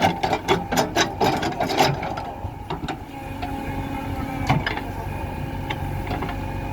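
JCB 3DX backhoe loader's diesel engine running steadily. In the first two seconds there is a quick run of clattering knocks, and one louder knock about four and a half seconds in.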